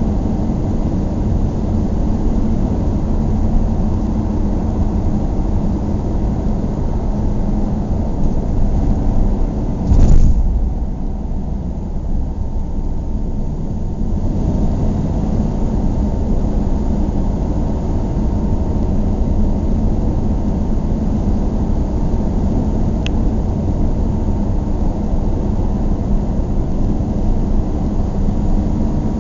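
Car driving: steady, low road and engine rumble. About a third of the way in there is one short, loud thump, after which the hiss is briefly quieter.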